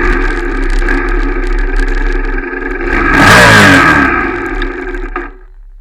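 Royal Enfield Shotgun 650's parallel-twin engine running steadily, with a loud rev about three seconds in that falls away in pitch. The sound drops off abruptly a little after five seconds.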